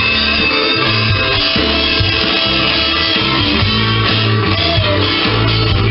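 Gibson electric guitar improvising lead lines over a rock backing track with bass and drums; the bass moves in long held notes that change about once a second.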